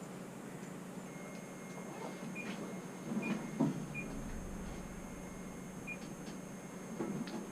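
Faint steady electronic tone from ghost-hunting equipment, starting about a second in, with several short beeps over it, amid a few soft knocks and rustles.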